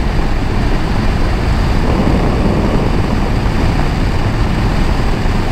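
Steady wind buffeting on the microphone of a KTM 390 Adventure motorcycle riding at road speed.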